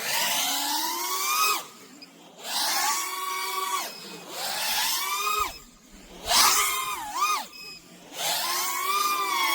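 5-inch FPV quadcopter's motors and props whining in five throttle punches, each rising and falling in pitch and dropping away between them, while the quad carries a heavy 6S 4000 mAh homemade li-ion pack.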